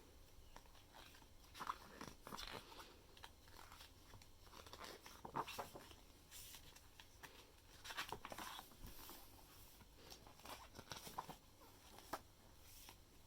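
Faint rustles and soft taps of album photobook pages being handled and turned, a few short crinkly sounds scattered between quiet stretches.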